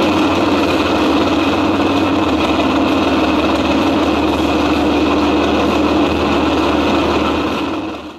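Large engine running at a steady idle, fading out over the last second.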